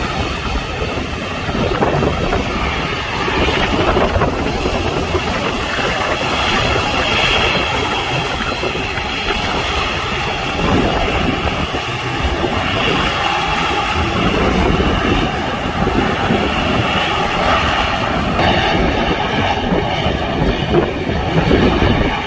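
Jet airliner engines running, a steady loud rumble with faint whining tones over it.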